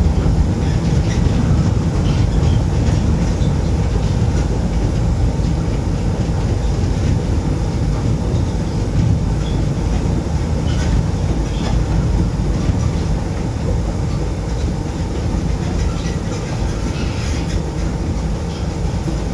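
Moscow Monorail train, rubber-tyred and driven by a linear induction motor, running along its elevated concrete beam and heard from inside the car. It makes a steady low rumble that eases slightly near the end as the train comes into a station.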